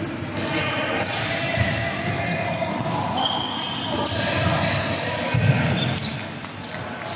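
Indoor volleyball play echoing in a large sports hall: ball strikes and players' footsteps and voices over a busy hall din.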